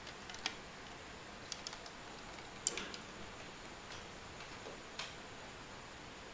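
Scattered light clicks and taps from a fishing rod being handled, about seven in all at uneven spacing, the loudest a little under three seconds in.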